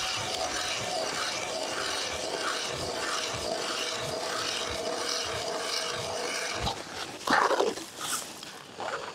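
Hand-cranked ice auger boring through lake ice, its blades grinding with a steady rasp. About seven seconds in the auger is pulled up out of the hole, giving louder scraping and the crunch of ice chips thrown onto the surface.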